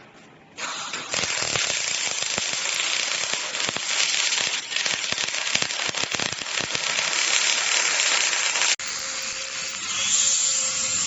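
A robotic welding arc crackling and hissing, a dense spattering sound that starts about half a second in. Near the end it changes abruptly to a steadier hiss with a faint hum.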